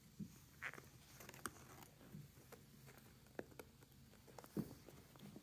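Faint, scattered scratches, rustles and soft taps from two kittens wrestling on a person's lap, their claws and paws scrabbling on denim. A slightly louder soft knock comes near the end.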